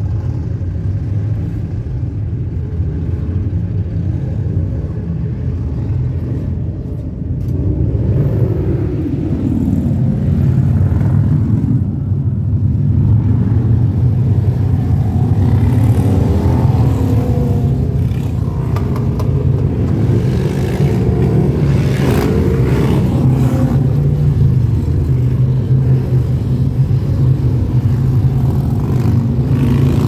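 A group of cruiser motorcycle engines running with a deep rumble, revving up and down as the bikes pull away and ride past, growing louder from about eight seconds in.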